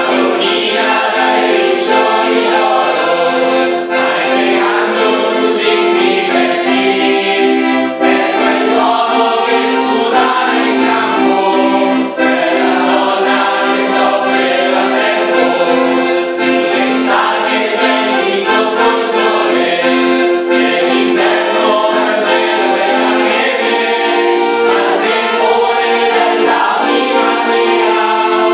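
A small group singing an Italian song together over an instrumental accompaniment of steady held chords.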